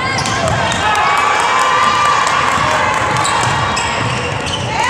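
Basketball bouncing on a hardwood gym floor in scattered thuds, with spectators' shouts and cheers echoing in the gym.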